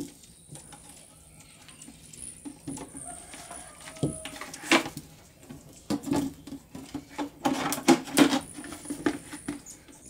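Hands handling a plastic soda bottle, tubing and a small fountain pump: scattered clicks, taps and crinkles of plastic, busier in the second half.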